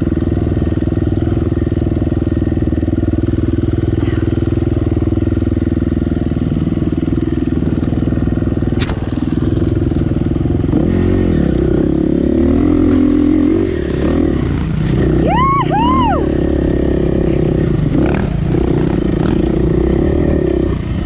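KTM EXC four-stroke single-cylinder enduro bike engine running close to the camera while riding a dirt trail, its note rising and falling with the throttle, most changeable a little past the middle.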